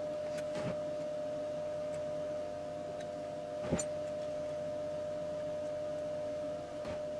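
A few light clicks and ticks of wires being handled and connected on a Fisher & Paykel Smartdrive washing machine stator, the sharpest about halfway, over a steady hum.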